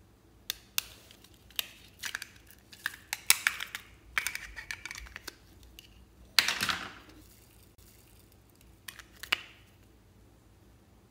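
Small plastic makeup cases being handled: scattered clicks and taps, a scraping, rustling stretch, and one louder swish about six and a half seconds in, then two more clicks near the end.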